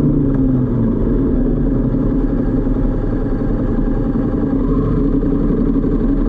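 Motorcycle engine running while riding, with wind and road noise; the engine note drops in the first second as the bike eases off, then holds steady.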